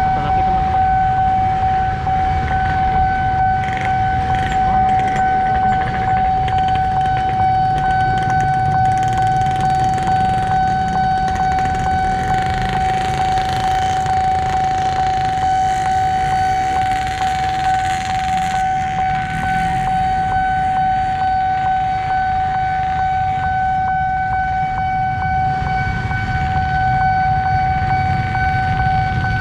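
Railway level-crossing warning alarm sounding one steady high electronic tone without a break, over the low rumble of road traffic and motorcycles.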